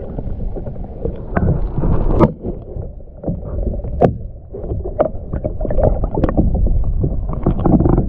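Water sloshing and gurgling around a submerged GoPro, heard muffled from underwater, with scattered clicks and knocks.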